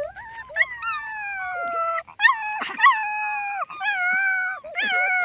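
Puppy whining: a run of long, high-pitched cries, each drawn out for a second or more and slowly falling in pitch, with short breaks between them.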